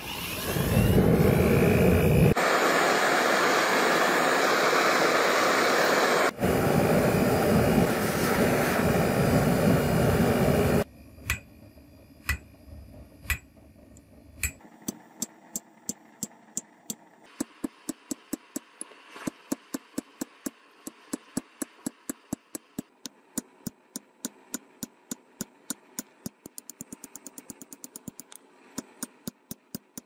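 Pipe forge's burner running with a loud, steady rushing noise, stopping abruptly about eleven seconds in. Then a hammer forging red-hot spring steel on an anvil: sharp, ringing strikes, a few at first, then about two a second, quickening near the end.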